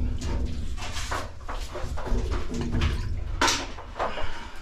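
Oil transfer pump running steadily while a heating-oil tank is pumped dry, with irregular knocks and clatters from the work, the loudest about three and a half seconds in.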